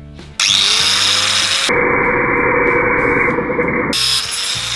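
Angle grinder switched on about half a second in, its motor whine rising as it spins up, then grinding through a metal bar with a loud, hissing cut. It sounds muffled for about two seconds in the middle. Background music plays underneath.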